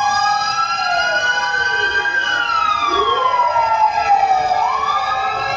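Several fire truck sirens wailing at once. Their pitches rise and fall slowly and cross one another, over steady held tones.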